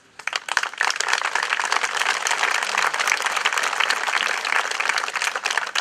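Crowd applauding with steady, dense hand-clapping that starts a moment in, builds over the first second, and stops near the end.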